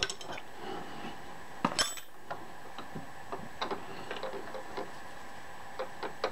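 Light metallic clicks and clinks of steel parts and tools being handled against a cast-iron Clausing lathe apron, scattered and irregular, with one sharper click about two seconds in.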